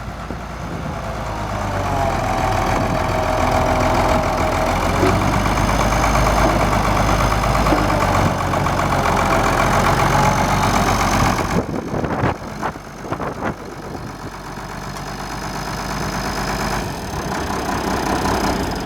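International 966 Hydro farm tractor's six-cylinder diesel running. It grows louder about two seconds in and holds there, then drops back about eleven and a half seconds in with a few clunks before settling.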